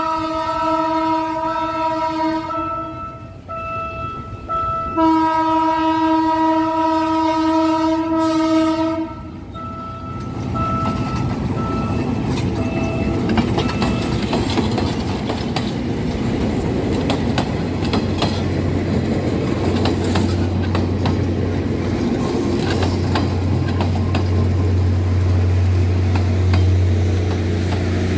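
Diesel-hauled passenger train sounding its horn on the approach to a level crossing: a long blast, two short toots, then another long blast, with a few short toots after. It then rolls past close by, its wheels rumbling and clacking over the rail joints and the crossing. A low steady hum builds as the coaches go by.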